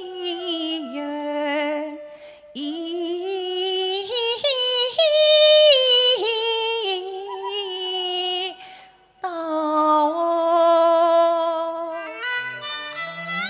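A woman singing Cantonese opera in long held, sliding and ornamented notes, pausing briefly for breath about two seconds and nine seconds in. A few low instrumental notes come in near the end.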